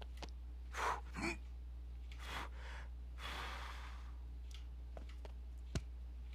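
A person's faint breathing: a short gasp about a second in and a longer breath out about three seconds in, over a steady low electrical hum, with a single click near the end.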